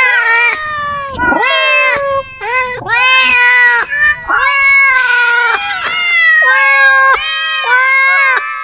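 Domestic cats meowing loudly, about a dozen short, drawn-out meows in quick succession with barely a pause between them.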